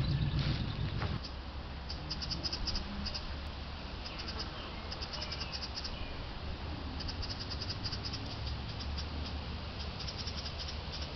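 Insects chirping in short trills of rapid high pulses, a group every couple of seconds, over a steady low rumble.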